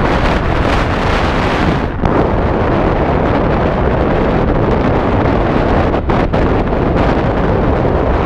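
Steady rushing of airflow buffeting the microphone of a camera worn by a paraglider pilot in flight, with brief lulls about two and six seconds in.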